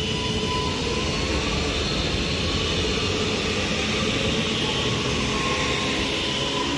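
Northern Class 331 electric multiple unit pulling away, with a steady rumble from its wheels and a whine from its traction motors whose tones drift slowly in pitch.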